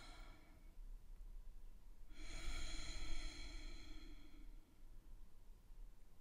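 A woman's slow, deep breathing: one breath trails off in the first second, then a longer breath comes from about two seconds in to about four and a half seconds in.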